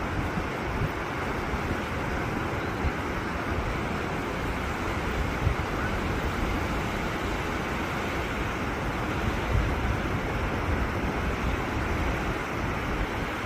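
Steady wind buffeting the microphone over the low wash of surf.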